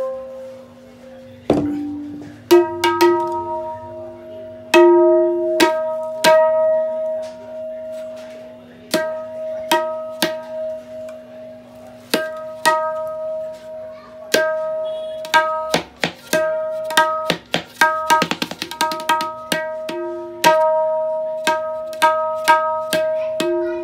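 Tabla dayan, the wooden treble drum, played with the fingers: ringing, clearly pitched strokes mixed with short damped taps, with a quick flurry of strokes about eighteen seconds in. A steady low tone sits underneath.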